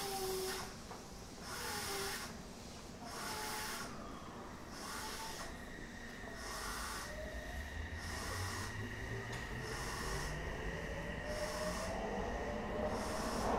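Odakyu 1000 series electric train, heard aboard a motor car, picking up speed: the Mitsubishi SiC-MOSFET VVVF inverter and traction motors whine with a slowly rising pitch. Underneath is a rhythmic hiss that pulses about once a second, and the noise grows louder toward the end.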